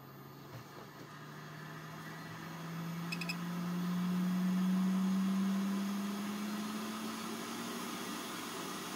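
A steady electric hum that rises slowly in pitch and grows louder, over a hiss, with a couple of short beeps about three seconds in.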